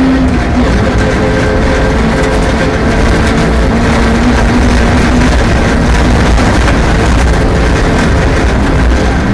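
Rally car engine running hard at speed, with a steady engine note under heavy road and tyre noise.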